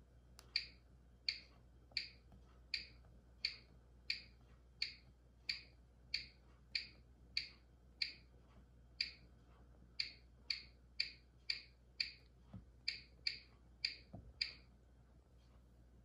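Bosch Serie 6 washing machine control panel beeping once for each press of its plus button: a regular string of short, high beeps, about one and a half a second, as the service-mode test program number is stepped through.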